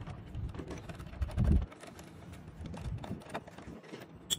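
Small screwdriver and fingers working tiny screws out of a servo frame: scattered light clicks and taps of metal on metal and plastic. A dull bump comes about a second and a half in, and a sharp click near the end.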